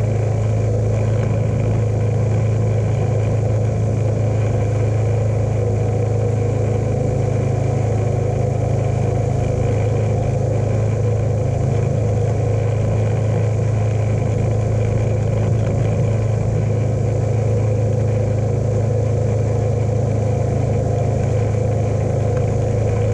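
John Deere lawn tractor engine running at a steady speed while driving across the lawn towing a sprayer, a constant low drone with no change in pitch.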